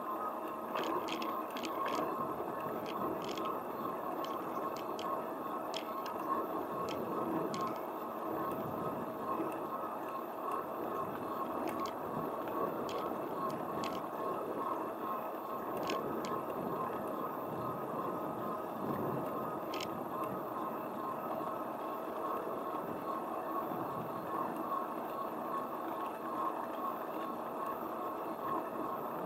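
Steady rolling noise of a small ride's wheels on asphalt, with a constant hum and scattered light clicks and ticks, most of them in the first half.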